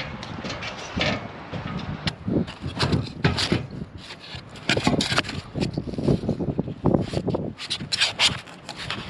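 Irregular scraping and rubbing with many quick, sharp knocks and clicks from work on a metal roof.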